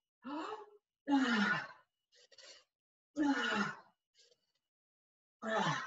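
A woman's heavy voiced exhales, four of them a second or two apart, each falling in pitch: breathing out hard with effort during a dumbbell workout set.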